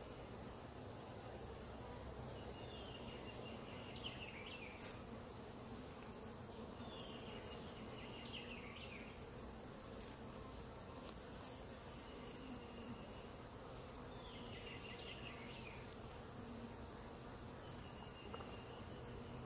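Honeybees humming steadily around an opened hive as a brood frame is lifted out and inspected. A short high-pitched call repeats about every four seconds over the hum.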